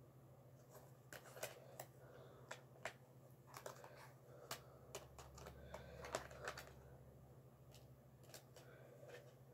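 Faint plastic clicks and ticks from handling a multi-disc Blu-ray case: its hinged disc trays being flipped and a disc taken off and pressed back onto its hub, scattered irregularly.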